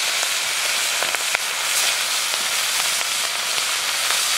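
Small whole puti fish frying hard in hot mustard oil in a metal karai. The oil gives a loud, steady sizzle with scattered pops and crackles.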